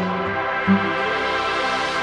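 Electronic background music with sustained synthesizer notes.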